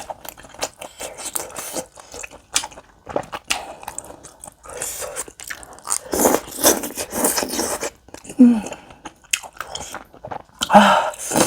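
Close-miked mukbang eating: chewing and biting spicy tteokbokki rice cakes and beef intestine, with many wet mouth clicks and smacks.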